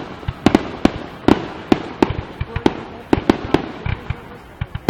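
Fireworks finale: a rapid, irregular barrage of aerial firework bursts, several sharp bangs a second with deeper booms among them.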